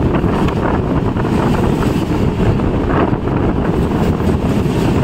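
Farakka Express passenger train running along the line: a steady rumble of wheels on rail, with wind buffeting the microphone.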